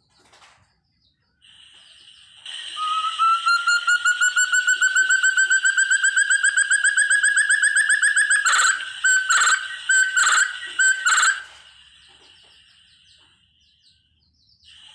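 Forest partridge (puyuh hutan) calling: a long run of fast repeated whistled notes that climbs steadily in pitch, followed by about five louder, separate calls.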